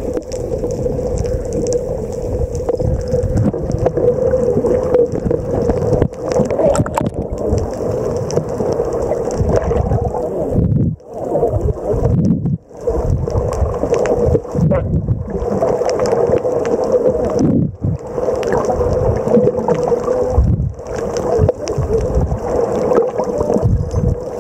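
Boat motor running steadily with a constant hum, mixed with wind and water noise, with a couple of brief dropouts partway through.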